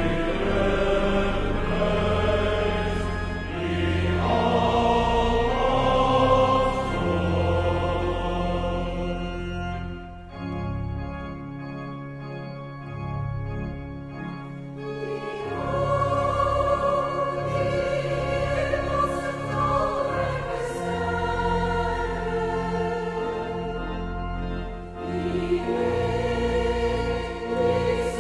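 Choir singing an Afrikaans hymn, in sustained sung lines that go softer for a few seconds about ten seconds in.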